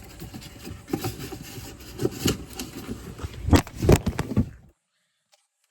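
Irregular metal knocks and clatter from hands and tools working on a furnace blower assembly while a replacement blower motor is fitted, over a steady rumble; the sound cuts off abruptly near the end.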